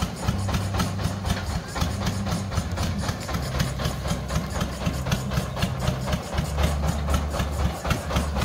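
Engine of a truck-mounted water-well drilling rig running steadily, with a rapid, even clatter over its low note.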